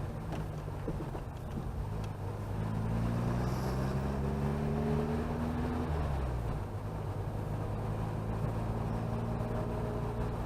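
Chevrolet Chevette's four-cylinder engine heard from inside the moving car, pitch climbing as it accelerates for a few seconds, then dropping about six seconds in, as at a gear change or lifting off, and running steady under road noise.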